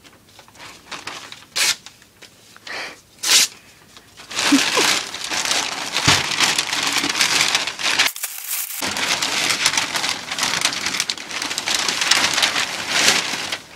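Packing paper rustling as a sheet is handled, with a few sharp crinkles. About four seconds in this gives way to loud, continuous crinkling and rustling as the big white wrapping is pulled off a wooden fingerboard ramp, broken only briefly a little past halfway.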